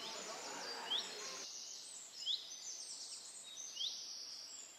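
Birdsong: one bird repeats a short, sharp chirp about every second and a half among higher trilling song from other birds. A low background murmur of voices cuts off abruptly about a second and a half in.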